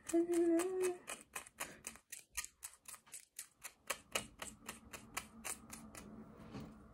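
Tweezers plucking strands at the hairline of a synthetic lace-front wig: a quick, even run of small clicks, about four a second, thinning the hair so the parting looks natural. A brief hummed note sounds at the start.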